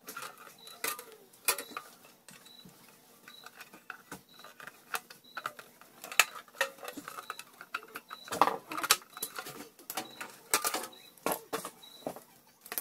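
Irregular clicks, knocks and light scrapes of a thin sheet-steel computer case side panel being handled and fitted onto the tower.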